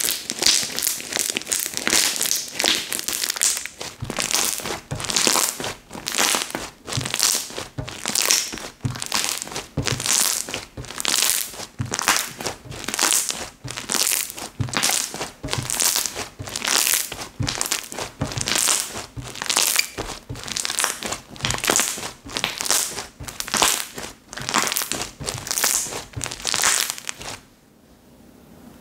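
Slime being kneaded and pressed by hand, a crisp crackling sound that comes in strokes about once a second and stops shortly before the end.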